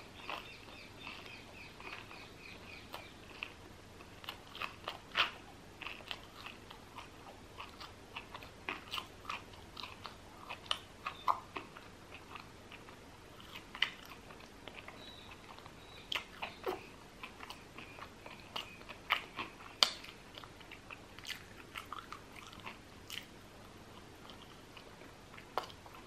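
Close-miked eating: mouth chewing with irregular crisp, crunchy bites of crusty baguette and cheese.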